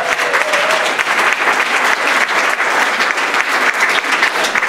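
Audience applauding: steady, dense clapping from a roomful of people.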